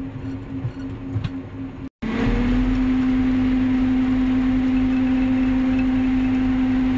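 Self-propelled forage harvester running steadily as it cuts standing maize for silage, heard from inside the cab: a constant machine drone with a strong low hum. It cuts out for an instant just before two seconds in and comes back louder.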